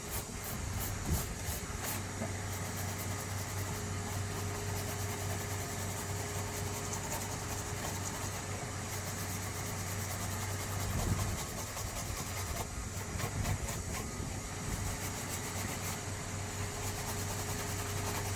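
A steady machine hum with an even hiss and scattered light clicks.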